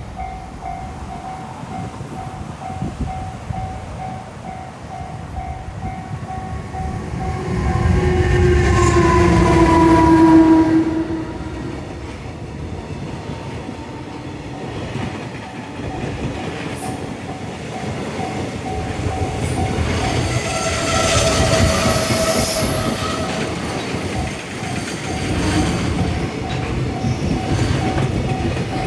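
Japanese railroad crossing alarm ringing its repeating kan-kan ding while a train rumbles through. A train horn sounds about eight seconds in, with a slightly falling pitch, and is the loudest part.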